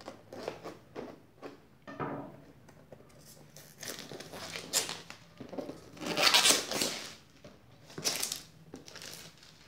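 Clear plastic shrink wrap on a cardboard box being cut, torn and pulled off by hand, crinkling in irregular bursts, loudest about six seconds in and again about two seconds later.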